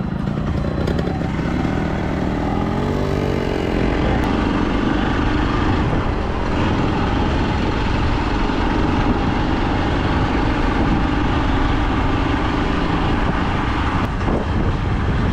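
Honda motorcycle engine pulling away from a standstill and running on as the bike picks up speed, the pitch rising and falling a couple of seconds in as it revs through the gears.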